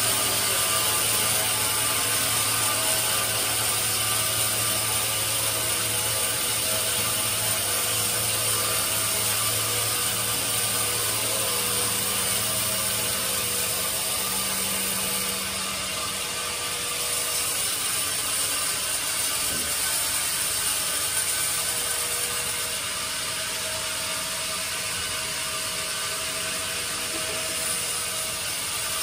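Bandsaw mill running and sawing a teak log on its carriage: a steady rushing noise of the blade through the wood, with a low hum that fades out about halfway through.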